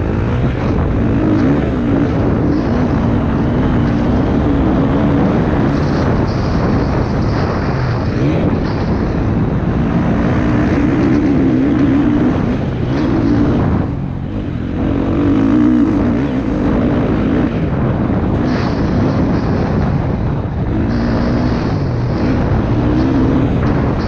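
Motocross motorcycle engine under race throttle, revving up and backing off again and again, with a brief easing off about two-thirds of the way through.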